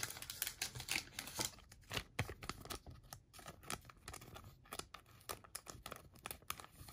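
Soft plastic card sleeve crinkling as a trading card is slid into it: a run of faint crackles and clicks.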